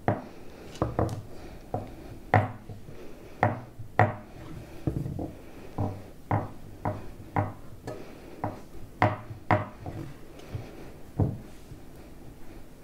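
A fork pressing down the edge of a crumbly shortcrust base in a quiche pan, its tines tapping against the pan in irregular sharp clicks, roughly one or two a second.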